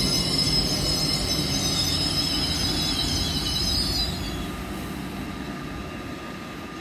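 Train running at the platform: a low rumble with a steady high-pitched whine over it. The whine stops and the rumble fades about four seconds in.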